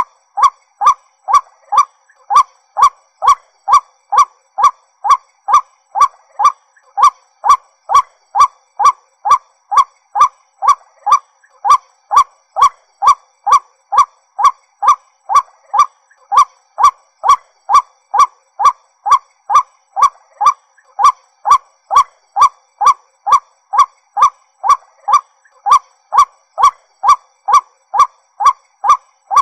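White-breasted waterhen calling: one short, loud note repeated monotonously at an even pace of about two a second.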